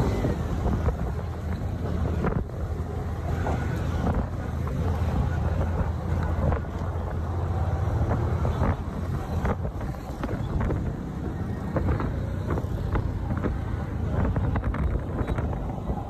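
A small vehicle's engine running steadily while riding through traffic, with a low rumble and wind buffeting the microphone, and scattered short knocks.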